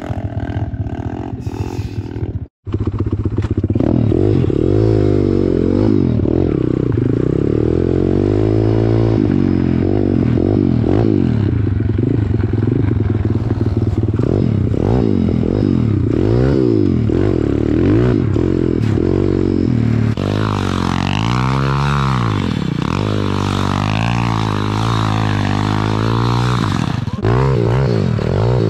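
Small single-cylinder four-stroke pit bike engines revving up and down as the bikes ride, their pitch sweeping repeatedly. The sound cuts out for an instant about two and a half seconds in.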